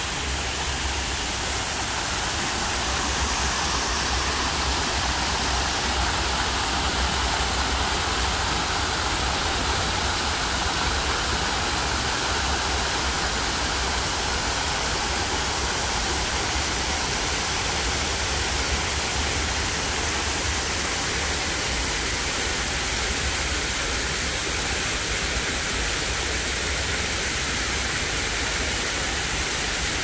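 Man-made rock waterfall pouring over stepped ledges into a pond: a steady rush of falling water, with a low rumble underneath.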